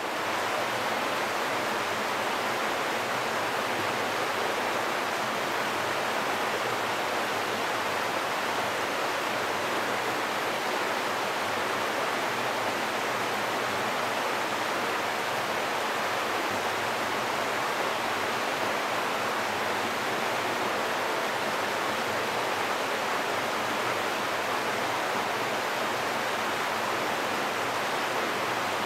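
Glacial meltwater running in a steady, even rush.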